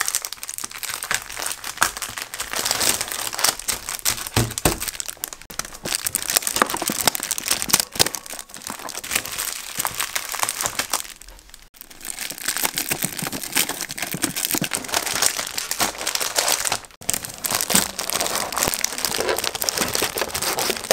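Clear plastic sleeves crinkling as packaged magnetic bookmarks and bagged phone cases are handled, shuffled and stacked, with a short lull about halfway through.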